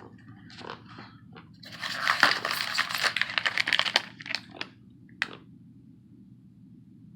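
Packaging from the printer box being handled: a few light clicks, then about two seconds of dense crinkling and rustling, and a single click near the end.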